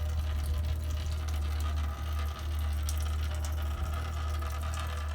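Engine coolant draining out of a Toyota Tacoma 2.7's cooling system in a steady running stream, with a steady low rumble underneath.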